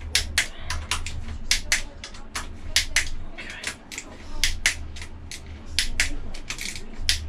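Ratchet wrench clicking, two or three sharp clicks a second in uneven runs, as bolts at the rear of a marine diesel are tightened in turn.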